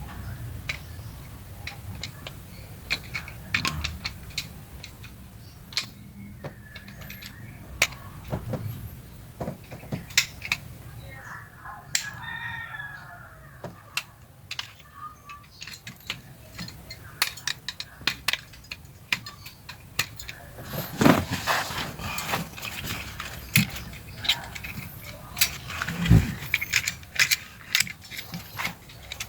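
Irregular clicks, taps and small rattles of a car seatbelt retractor's plastic and metal parts being handled and pried apart, with a few louder knocks in the latter part.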